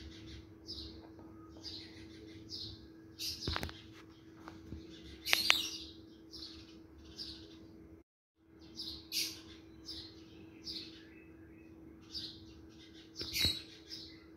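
Small birds chirping over and over, about twice a second, over a steady low hum. A metal spatula clinks and scrapes against an aluminium cooking pot a few times; the loudest clink comes about five seconds in.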